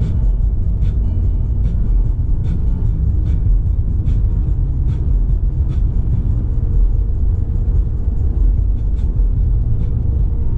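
Car driving on the road: a steady low rumble of tyres and engine, with faint sharp ticks a little more often than once a second.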